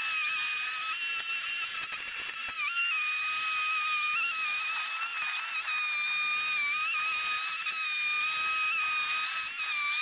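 Background music: a high, sustained whistling synth tone that shifts a little in pitch now and then over a hissy upper layer, with no bass.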